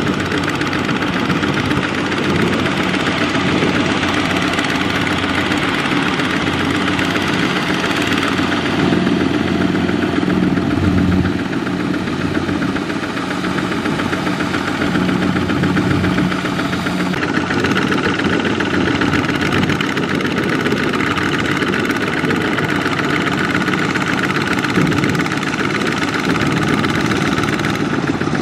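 Kubota ZT140 single-cylinder diesel engine of a two-wheel walking tractor running steadily under load, pulling a loaded rice trailer through deep mud.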